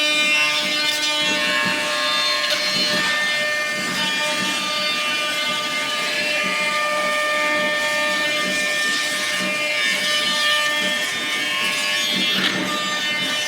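CNC machine running, its motors whining in several steady pitches that drop in and out as the axes move, over a background of mechanical noise.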